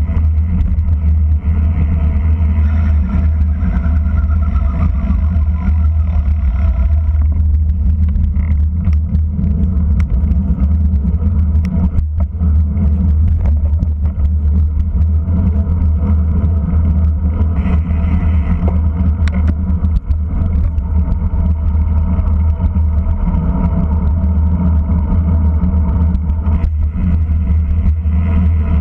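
Wind and road rumble on a bicycle-mounted camera's microphone while racing at speed: a loud, steady, deep buffeting roar.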